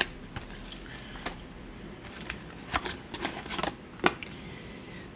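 A baseball card in a hard plastic case being slid out of its black cardboard sleeve and handled. The sleeve scrapes softly, with a scattering of small clicks and taps as the case and its insert knock together.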